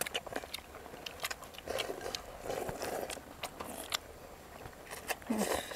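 Close-miked eating: chewing, biting into bread rolls and slurping curry and noodles from bowls, with many small wet mouth clicks. A short falling vocal murmur comes near the end.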